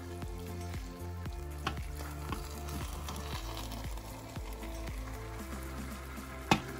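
A spoon stirring thick eru greens cooked in palm oil in a pot, with a light sizzle, over background music with held chords and a steady bass. A single sharp knock sounds near the end.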